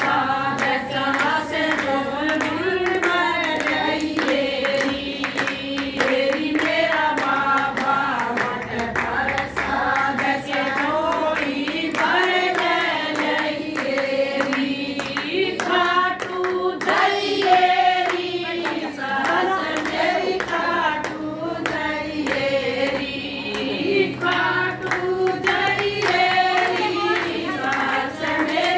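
A group of women singing a Hindi devotional bhajan together, with steady hand clapping keeping the beat.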